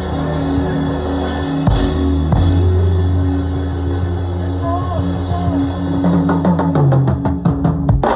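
Drum kit played along to a worship song backing track, with sustained bass and chords under it. About six seconds in, the drummer plays a fast fill of rapid strokes that builds to the end.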